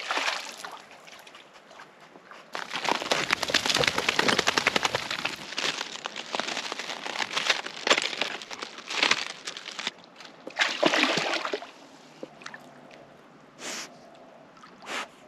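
A dog swimming and paddling through a shallow brackish pond, the water sloshing and splashing in repeated bursts, busiest a few seconds in.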